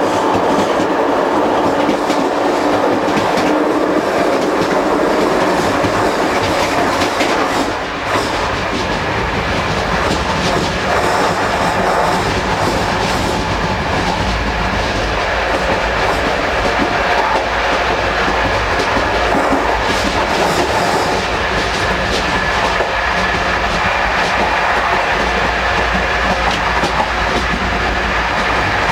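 Running noise in the gangway between two Corail passenger coaches of a moving train: a loud, steady rumble with the wheels clicking over the rail joints, briefly quieter about eight seconds in.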